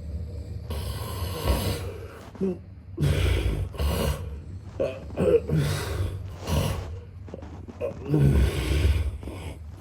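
A man snoring, with irregular noisy breaths: several long snores about a second each and a few short ones in between.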